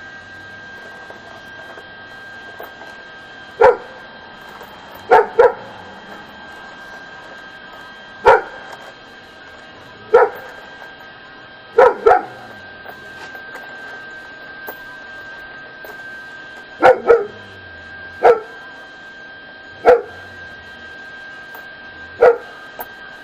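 A dog barking: about a dozen short, loud barks, some single and some in quick pairs, at irregular intervals. A steady high-pitched tone runs underneath.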